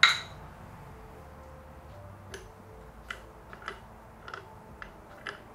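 A sharp metallic clank with a brief ring, then light, irregular metal ticks, about eight of them, over the next three seconds: hand tools and hardware handled while tightening a front suspension mount.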